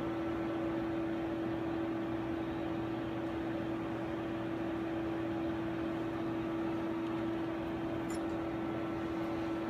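Steady hum of laboratory equipment: one constant mid-pitched tone with fainter higher tones over a hiss, unchanging throughout.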